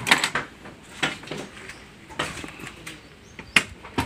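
Scattered knocks and clanks, about five in four seconds and the sharpest one near the end, as the car body is pushed backward by hand with its engine hanging from a chain hoist.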